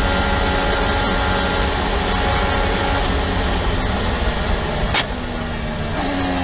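Onboard audio of an IndyCar's twin-turbo V6 running at high speed with heavy wind rush. About five seconds in there is a sharp crack, and the engine note then drops as the car slows and shifts down.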